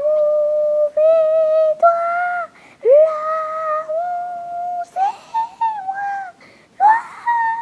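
A high voice humming a slow wordless tune in long held notes, stepping up and down in pitch with short breaths between phrases.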